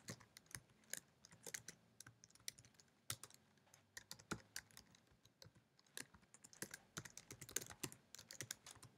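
Faint typing on a computer keyboard: irregular key clicks in short runs with brief pauses.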